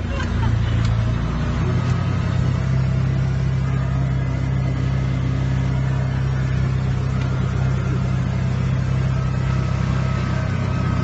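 Side-by-side ATV's engine running steadily as it drives along a dirt trail, heard from inside the open cab.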